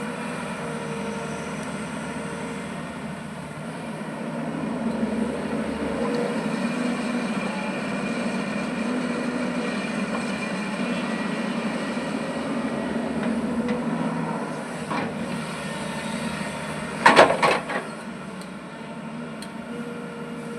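An earth-moving machine's diesel engine running steadily under working load. A short, loud metallic clatter comes a few seconds before the end.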